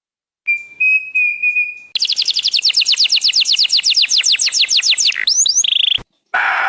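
A songbird singing: a held, slightly wavering whistle, then a fast trill of descending notes, then two rising whistles and a short held note. It cuts off abruptly near the end.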